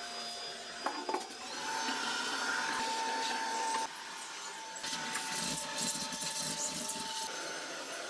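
Bobbot cordless handheld vacuum switching on about a second and a half in and running with a steady motor whine. Later it knocks and rubs as the nozzle is worked over a perforated floor mat.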